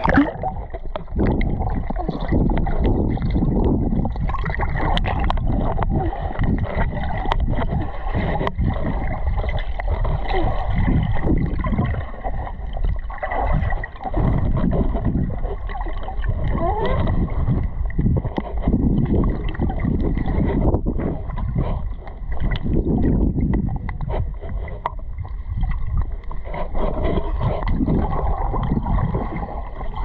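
Water sloshing and gurgling close to the microphone, muffled, in irregular surges.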